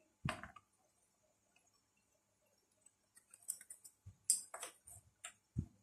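Acer 4738 laptop motherboard being set by hand into its plastic bottom case: scattered light clicks and knocks of circuit board against plastic. There is one knock just after the start, a run of small clicks in the second half with a sharper knock among them, and a dull thud near the end.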